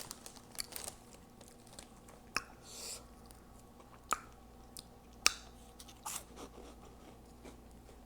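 Close-miked chewing of Hot Cheeto Puffs: crunches and wet lip smacks in separate sharp clicks, the loudest a little past five seconds in.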